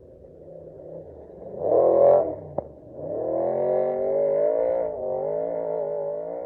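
Off-road race truck's engine at full throttle: it swells to its loudest about two seconds in, a sharp knock follows, then the engine note climbs in pitch as the truck accelerates down the course and holds high.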